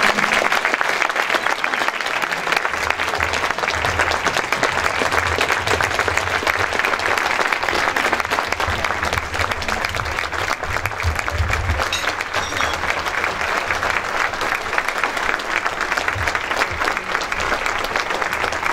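A large audience clapping steadily and without a break.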